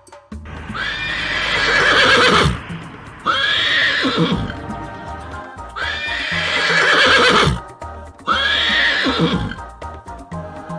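Horse neighing: four whinnies, a long one then a shorter one, twice over, each wavering and falling in pitch. Background music plays underneath.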